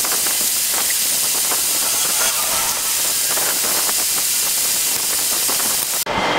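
Steady hiss of room noise that cuts off suddenly about six seconds in, with faint small clicks of a dog nail clipper trimming a Labrador's nails.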